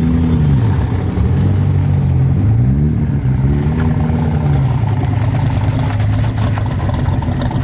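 Rotary engine, which onlookers take for a quad rotor, revved in about four blips, its pitch rising and falling each time, then running on steadily for the last few seconds.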